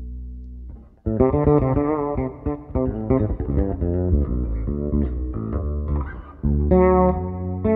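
Fretless five-string electric bass playing a melodic line of plucked notes, some sliding in pitch into the next. A held note fades out just before the line starts, about a second in.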